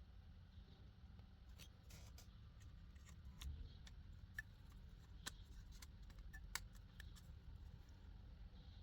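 Near silence: a faint low hum with scattered small clicks and taps, about a dozen, the sharpest around the middle.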